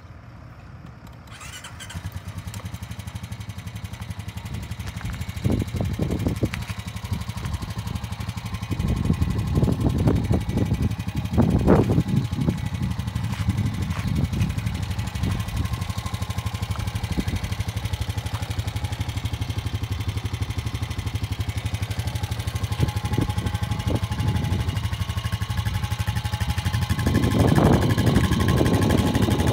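2019 Honda Rancher TRX420 ATV's single-cylinder four-stroke engine starting about a second and a half in, then running steadily at idle, with a few louder swells.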